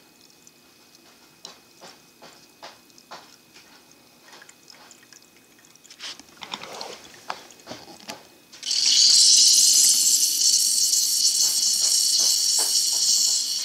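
AeroPress being pressed down into a cup: small clicks and drips, then, about nine seconds in, a loud steady hiss for about five seconds as the plunger forces air through the coffee grounds and paper filter at the end of the press.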